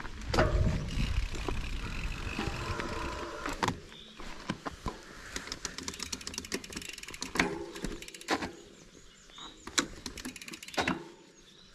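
Kona Process 153 mountain bike rolling down a dirt trail: tyres on the ground and the chain and frame rattling, with sharp knocks over bumps. A rush of wind on the chest-mounted GoPro's mic over the first few seconds, then quieter clatter.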